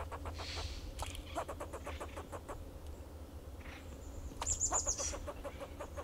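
Fox squirrel alarm call: runs of short, clucking barks repeated several times a second, with a louder, shriller burst about four and a half seconds in.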